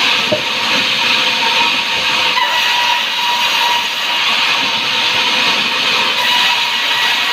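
Sawmill saw running through timber: a loud, steady high hiss with a faint whine.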